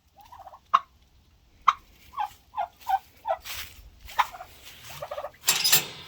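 Domestic turkeys gobbling and calling: a string of short, sharp calls and quick rattling gobbles, with a brief rustling burst near the end.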